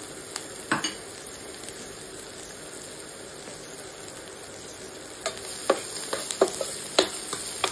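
Finely chopped cabbage sizzling steadily in hot oil in a stainless steel pan. About five seconds in, a spatula starts stirring it, knocking and scraping against the pan in quick clicks.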